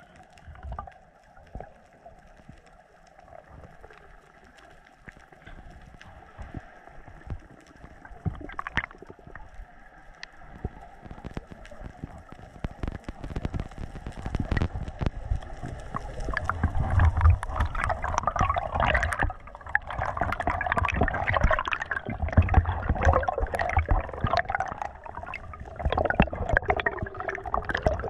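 Water heard through an underwater camera: faint crackle for the first several seconds, then louder gurgling, bubbling and rushing water with low rumbles, building over the second half as bubbles stream past the lens.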